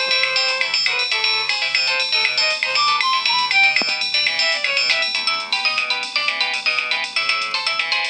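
Nokia 2600 mobile phone playing a polyphonic ringtone preview: a synthesized melody of short notes over a repeating bass line.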